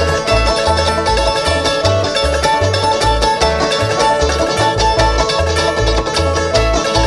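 Live bluegrass string band playing: fast banjo picking with other plucked strings over a steady bass beat.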